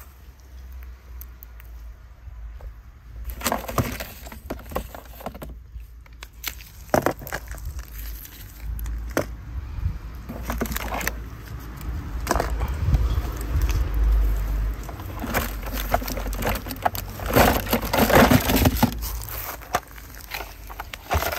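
Toy cars being handled and moved about, giving irregular clicks, knocks and clatter that grow busier toward the second half, over a faint low hum.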